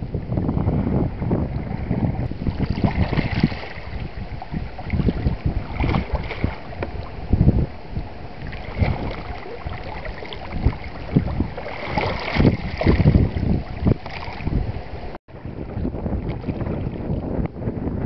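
Wind buffeting the camera microphone in irregular low gusts, over small sea waves lapping and splashing against shallow shoreline rocks. The sound breaks off for a split second about three-quarters of the way through.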